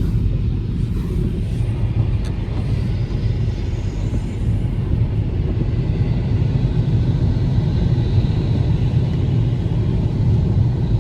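Car driving along at a steady pace: a continuous low rumble of engine and road noise with no changes.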